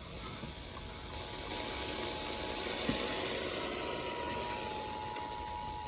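Radio static and hiss from an AM/FM receiver, with the faint steady two-note Emergency Alert System attention tone running under it and growing stronger in the second half, ahead of a tornado warning. A single click about three seconds in.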